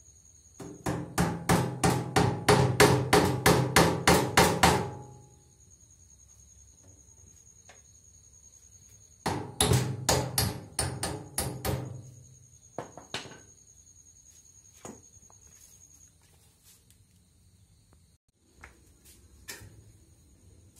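Hammer blows on the hub of a wheelbarrow wheel, driving it and its new bearing down onto the axle: a quick run of about sixteen ringing metal strikes, roughly four a second, then after a pause a shorter run, then a few single taps.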